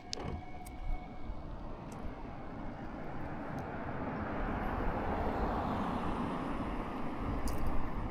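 A passing vehicle heard outdoors: a broad rushing noise that swells gradually to a peak about six seconds in, then eases off a little, with a few faint clicks early on.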